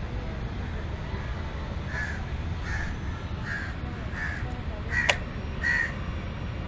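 A crow cawing six times in a regular series, a little under a second apart, starting about two seconds in, over a low steady rumble. A sharp click comes with the fifth caw.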